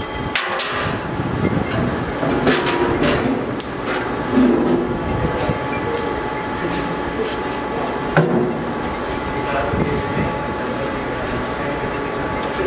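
Hand tools working on a CNC lathe's tool turret: a few sharp metallic clicks and clinks of an Allen key and tooling against the turret, over a steady machine hum.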